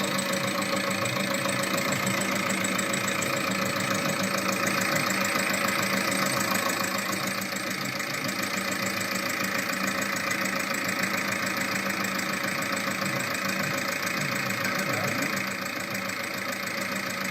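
VAG 1.9 TDI 105 PS four-cylinder diesel engine idling steadily with a fast, regular ticking over the diesel clatter: the sign of a defective hydraulic lifter (tappet).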